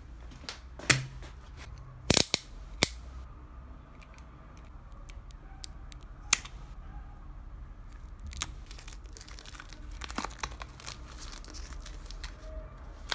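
Album packaging being handled and opened by hand: scattered sharp clicks and taps, then denser crinkling and crackling of plastic wrap in the last few seconds.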